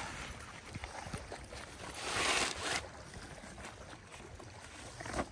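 Folding camp chair being collapsed: a rustle of its nylon fabric about two seconds in, over a steady low rumble of wind on the microphone.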